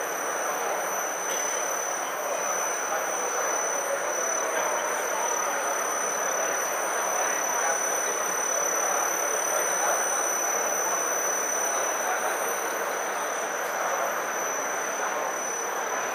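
Electric marble floor grinder running steadily on stone tiles: an even, unbroken grinding noise with a constant high whine above it.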